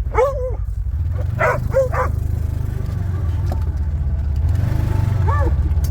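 Side-by-side UTV engine running steadily under load in low gear, getting louder toward the end as it takes a running start at a snowy hill. Dogs bark about four times over it.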